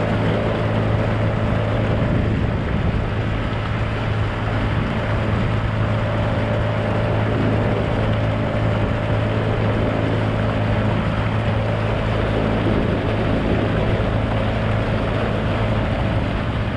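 A boat motor running at a steady speed, a constant hum, over the rush of water and wind.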